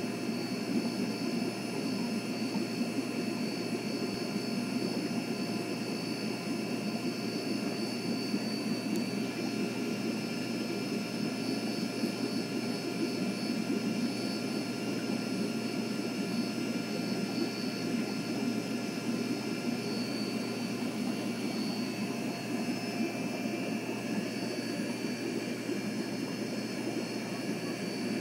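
Steady droning hum and hiss of aquarium equipment, with a few faint high whining tones, unchanging throughout.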